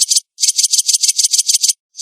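Bird calling in rapid rattling runs of shrill, high notes, about eight a second: a short run at the start, then a longer run of about ten notes after a brief gap.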